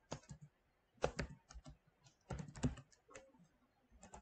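Typing on a computer keyboard: irregular keystrokes in short clusters.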